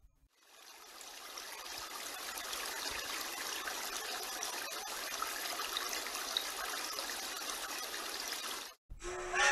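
A steady rushing hiss fades in over the first second or so, holds, and cuts off abruptly near the end. Just after it stops, a pitched, whistle-like sound starts.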